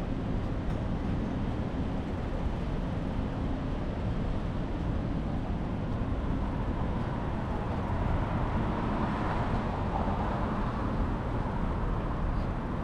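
Steady street and traffic noise heard from a moving bicycle, with wind rumbling on the microphone; a vehicle sound swells slightly about two-thirds of the way through.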